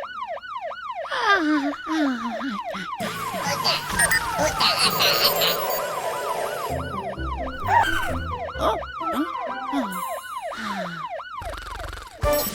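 Cartoon siren yelping, its pitch rising and falling several times a second, over background music. It drops out for a few seconds in the middle and comes back, and a couple of falling glide tones sound with it.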